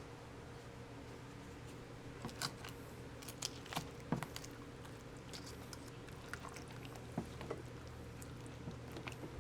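Scattered wet squishes and light clicks of chicken pieces being pushed into thick gravy in a skillet, busiest a couple of seconds in, over a steady low hum.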